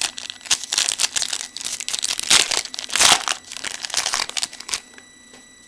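Wrapper of a trading card pack being torn open and crinkled by hand, in a run of crackling rustles that stops about a second before the end.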